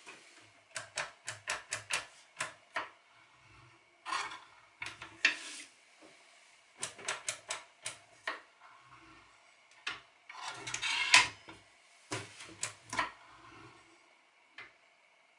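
Clicks, knocks and rattles of an Evolution R255 SMS sliding mitre saw being handled with its motor off, the head raised and lowered and its parts worked, in irregular clusters with two short rubbing sounds.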